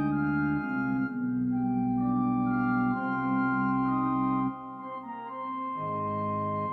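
Organ music: slow held chords that change every second or two, with the bass dropping out briefly past the middle.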